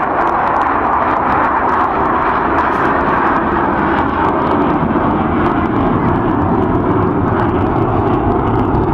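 Avro Vulcan's four Bristol Olympus turbojets roaring loudly and steadily as the bomber flies its display. The sound deepens over the second half.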